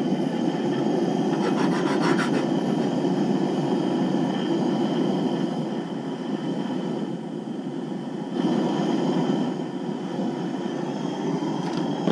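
Propane camp-stove burner burning steadily under a pan of oil: a constant low rushing noise.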